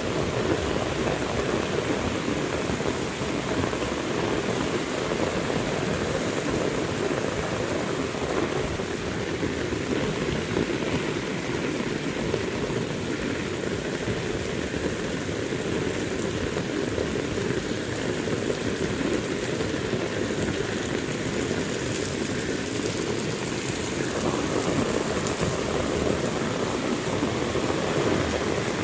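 Heavy rain falling steadily, a dense, even pattering with no let-up.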